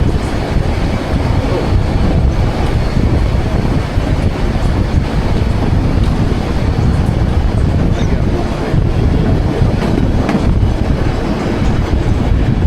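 White Pass & Yukon Route narrow-gauge passenger train running along the track, heard from aboard: a loud, steady rumbling noise.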